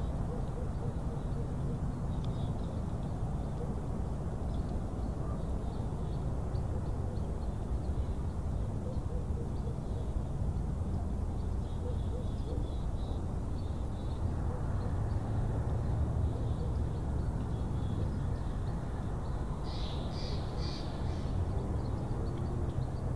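Steady low wind rumble on the microphone, with faint bird chirps now and then and a short burst of louder bird calls a few seconds before the end.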